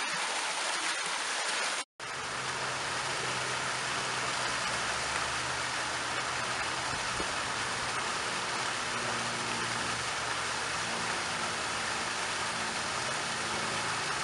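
Water from a foaming fountain jet splashing down onto stone, then, after a brief dropout about two seconds in, water pouring and splashing steadily down a stepped stone cascade, with a deeper rumble under the splashing.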